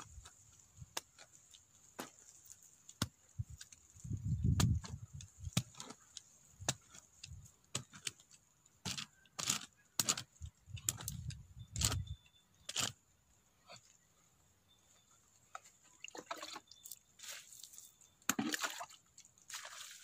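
Small hand digging tool chopping and scraping into dry soil in an irregular series of sharp clicks and knocks, with occasional low thumps.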